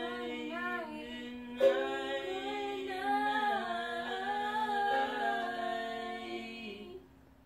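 Background song: a singing voice holding long, gliding notes over a steady low note, with a sharp struck accent about one and a half seconds in. It fades out near the end.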